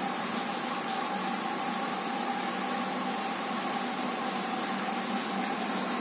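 Steady room noise: an even hiss with a constant low hum and a faint steady whine, like a fan or other running appliance, with no changes or sudden sounds.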